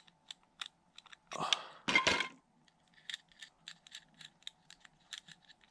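Small metal clicks and scrapes from handling a Zippo lighter's insert and a screwdriver: two louder scrapes about one and a half and two seconds in, then a run of light irregular ticks.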